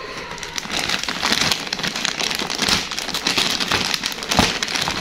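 Clear plastic wrapping crinkling and crackling continuously as a child's hands pull at it to unwrap a toy, with a sharper crackle near the end.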